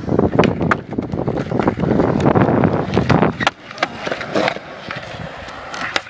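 Skateboard wheels rolling over rough concrete, a loud rumble with clicks running through it, which drops away about three and a half seconds in. After that come a few sharp knocks and clacks of the board against the concrete.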